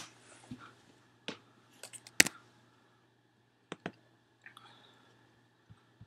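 Scattered clicks from a computer being operated by hand, single and paired sharp clicks a second or so apart, over a faint steady low hum.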